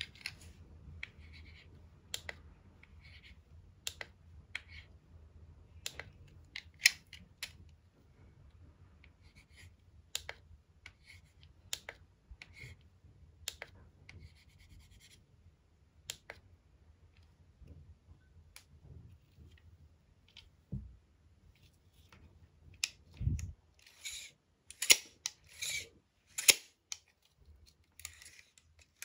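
Handling a plastic tape measure with a built-in LCD writing tablet: sharp plastic clicks every second or two, with short scratching strokes on the writing screen. Near the end comes a quick run of louder clicks and rattles.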